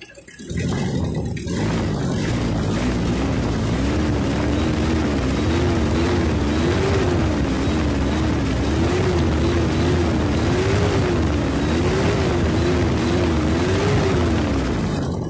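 Toyota 2C four-cylinder diesel engine running, its speed rising and falling repeatedly as it is revved. The rough idle has been cured, and the engine pulls strongly when revved.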